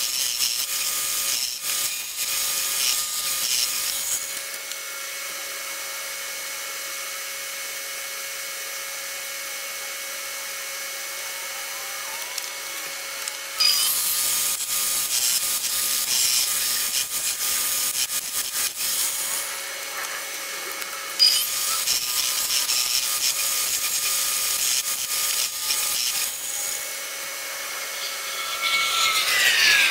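2x72 belt grinder running with a steady hum while a steel knife blade is hollow-ground against the belt over the contact wheel, in three grinding passes: one at the start, then two longer ones in the second half. A falling whine comes in near the end.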